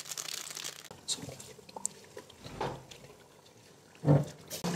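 Faint scraping and clicking of a silicone spatula stirring spice masala as it roasts in ghee in an aluminium pot. A brief low hum comes about four seconds in.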